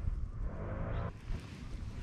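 Wind buffeting the microphone on a fishing kayak, with a brief pitched whir about half a second in.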